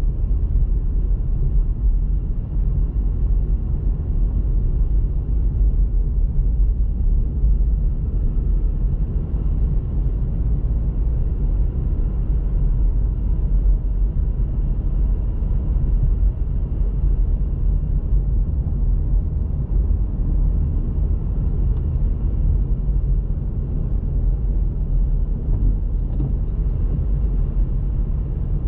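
Steady low rumble of a car driving: engine and tyre noise on the road, even throughout.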